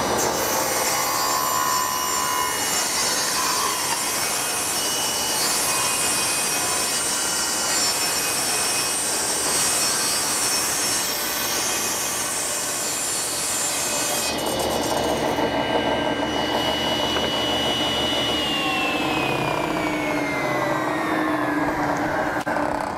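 Table saw with its blade tilted to 45 degrees, making a long bevel rip cut through a red oak board. The noise of the blade in the wood thins out about two-thirds of the way through. Over the last few seconds a whine falls steadily in pitch as the blade winds down.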